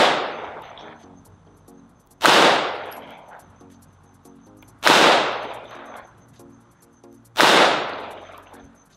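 Gen5 Glock 17 9mm pistol firing slow, aimed single shots: four shots about two and a half seconds apart, each trailing off over about a second.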